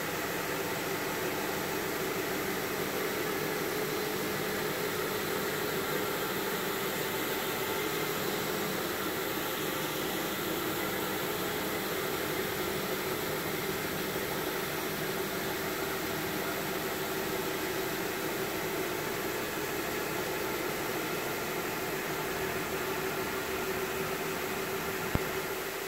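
Electric brush carpet agitator running steadily, its motor humming and its brushes scrubbing through carpet wet with pre-sprayed cleaning solution. A single click sounds near the end.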